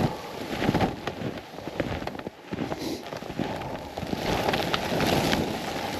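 Snowshoes tramping through deep snow: an uneven run of crunching and rustling with many small crackles.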